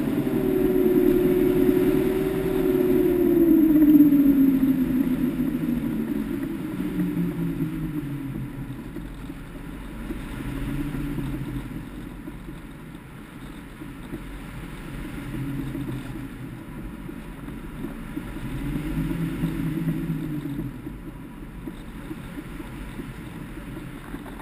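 Electric motor and propeller of a Skywalker FPV plane, heard from the onboard camera, winding down in pitch over the first several seconds. It then runs low and unsteady under air rush as the plane comes down on a nearly flat LiPo battery.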